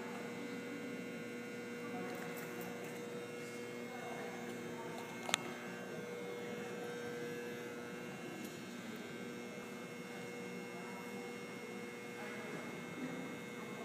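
Steady electrical hum, with one sharp click about five seconds in.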